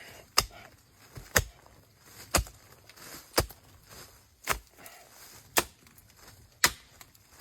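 Spade chopping into soft, rain-soaked earth in steady strokes, about one a second, seven in all, digging out a wild Chinese yam.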